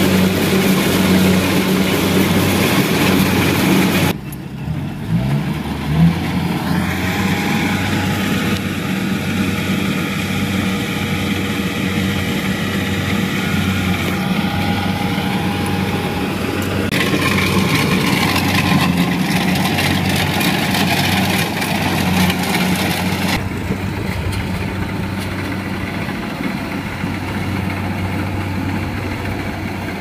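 Kubota DC70 rice combine harvester running in the field: a steady diesel engine drone. The tone changes abruptly about four and twenty-three seconds in, and there is a short rising note around five seconds in.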